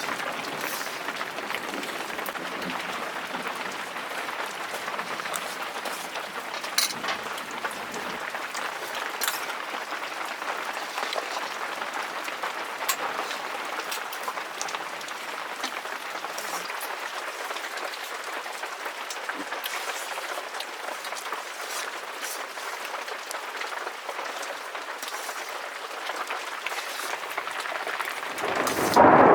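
Steady rain falling, a continuous hiss with scattered sharper drops, swelling suddenly louder just before the end.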